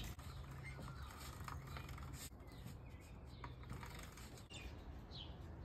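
Quiet outdoor background with a steady low hum and a few faint clicks, and birds chirping faintly, with a couple of short chirps near the end.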